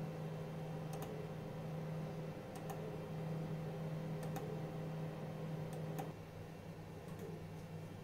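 Sharp single clicks about every second and a half, with a quick pair about six seconds in, while the CNC mill's Z axis is jogged 0.1 mm up and down from the control software. A steady low hum runs underneath and drops about six seconds in.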